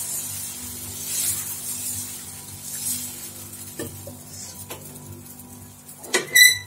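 Dosa batter sizzling on a hot iron tawa as a ladle spreads it in circles. The hiss swells with each stroke, about every second and a half, then settles to a fainter sizzle. A low steady hum runs underneath, and a brief high ringing tone comes near the end.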